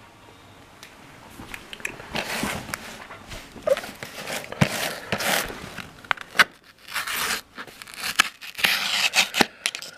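Knife blade scraping and slicing along the taped edge of a cardboard mailer, giving a run of irregular scratchy strokes, crackles and tearing sounds as the cardboard is handled. It starts a second or two in.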